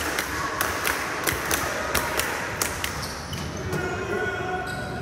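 A basketball bouncing on a hardwood gym floor during play: a quick, irregular run of sharp bounces through the first three seconds, thinning out after that.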